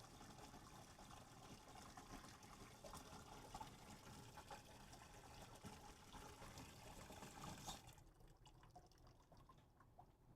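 Hot water running faintly from a sink tap, pouring and trickling into the sink; the flow stops about eight seconds in.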